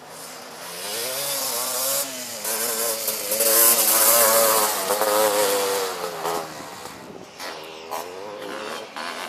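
Engine of a racing three-wheeler ATV passing close, its pitch rising and falling as the rider works the throttle and shifts, loudest about four seconds in and then fading away.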